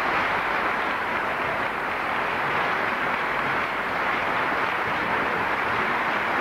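Audience applauding steadily, a dense, even clapping with no break.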